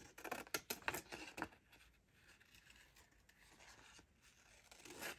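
Scissors snipping through a paper picture: a few faint, quick cuts in the first second and a half, then near quiet with light paper rustling toward the end.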